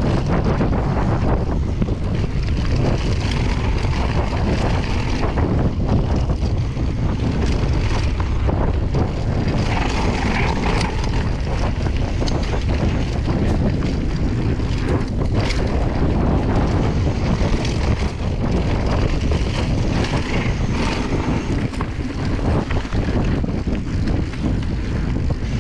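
Wind rushing over the microphone and mountain bike tyres rolling over dirt singletrack, a steady low rumble with scattered clicks and rattles from the bike over bumps.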